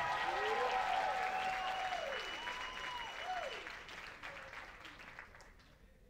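Audience applauding and cheering, with a few drawn-out whoops that rise and fall; the applause dies away over the last couple of seconds.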